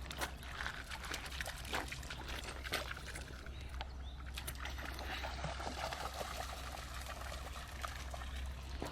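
River water trickling and splashing, with wind rumbling on the microphone and a few scattered clicks in the first few seconds.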